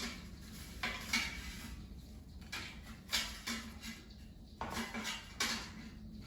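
Utensil clinking and scraping against the air fryer basket as cooked potato wedges are lifted out, in a string of separate short clatters.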